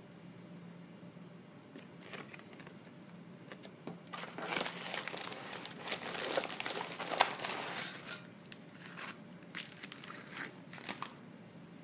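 Metallic plastic bubble mailer crinkling as a makeup pouch is pulled out of it and the mailer is handled. A dense stretch of crinkling starts about four seconds in, with one sharp loud crackle, then a few separate crackles near the end.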